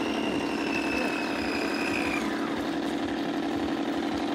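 Radio-controlled model tugboat under way, its motor giving a steady buzzing hum with a high whine on top that drifts slightly and fades out about two seconds in.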